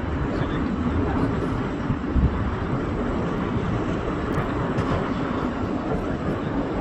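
Boeing 767 jetliner's engines on approach for a crosswind landing: a steady noise heavy in the low end, with a short thump about two seconds in.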